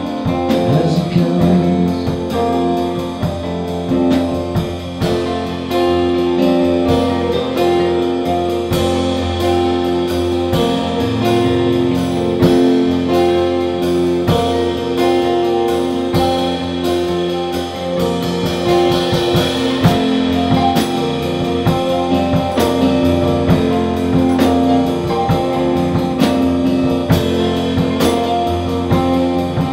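A live band playing an instrumental passage of an unplugged americana rock song: guitars over a steady beat, with no singing.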